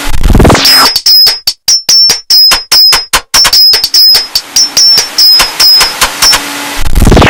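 TV programme title sting made of sound effects: a whoosh, then a fast, uneven string of about twenty sharp choppy hits, each with a high ringing tone, then a second whoosh near the end before it cuts off abruptly. It is loud.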